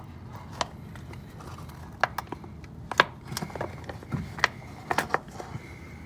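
Irregular light clicks and knocks of hand tools and metal parts being handled, the sharpest about three seconds in, as a clamp is worked loose to free an inner tie rod's boot.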